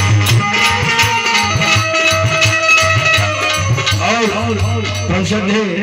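Live Indian folk music for a sohar geet: a keyed Indian banjo and harmonium playing over a steady rhythmic percussion beat. A man's singing voice comes in about four seconds in, with a wavering pitch.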